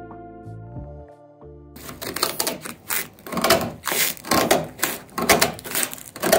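Scissors cutting through carbon fibre cloth in a quick series of crisp snips, about two a second, starting a couple of seconds in. Before that, guitar music fades out.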